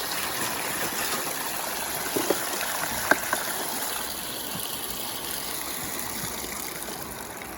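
Steady rushing water of a river, with a couple of small knocks about two and three seconds in.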